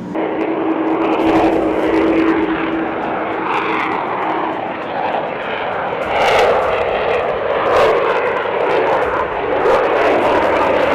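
Fixed-wing aircraft engine running: a continuous loud rushing noise, with a steady hum through roughly the first four seconds.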